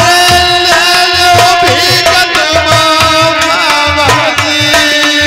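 Devotional folk music: a harmonium holds sustained notes while a hand drum keeps a steady beat. A male voice sings long, drawn-out melodic lines over them.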